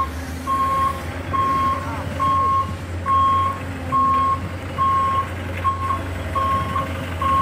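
An RC dump truck's reversing alarm beeping, a single high tone repeating a little faster than once a second, over a steady low hum.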